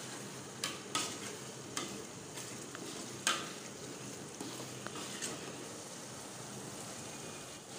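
A metal spoon stirring a thick vegetable stew in a stainless steel pot, over a steady sizzle from the pot. The spoon knocks against the pot's side several times, sharpest about three seconds in.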